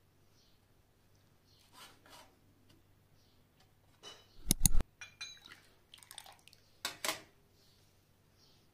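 Small porcelain tea cups clinking and scraping on a metal tray as they are set down and slid. The loudest is a sharp clatter with a short ring about four and a half seconds in, followed by lighter clinks and a scrape near seven seconds.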